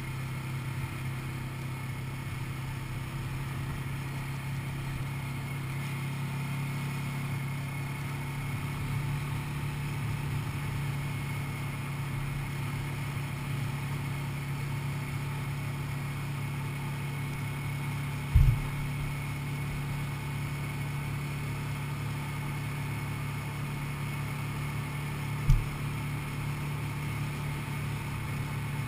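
ATV (quad bike) engine running steadily while riding along at a constant pace, a low drone with a thin steady whine above it. Two sharp low thumps stand out in the second half.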